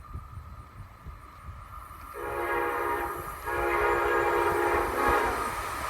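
Amtrak ACS-64 electric locomotive's K5LA five-chime air horn sounding a steady chord over a low rumble: one blast about two seconds in lasting just over a second, then a longer blast from about three and a half seconds that is still sounding at the end.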